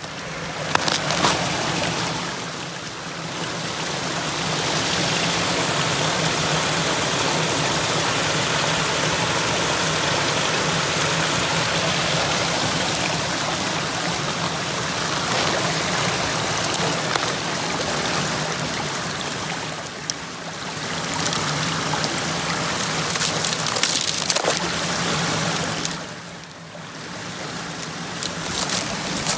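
Mountain creek running over rocks: a steady rush of water that grows louder a few seconds in and falls away near the end, with a few crunching footsteps on snow and ice.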